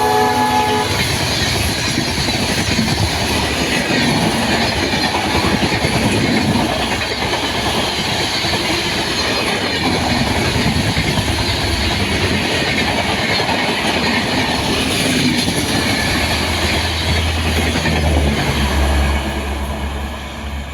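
An express train of LHB coaches rushing past at speed: a loud, steady rush of wheel and rail noise with clickety-clack, fading over the last couple of seconds. Just under a second in, the end of the WDP4D diesel locomotive's horn note cuts off.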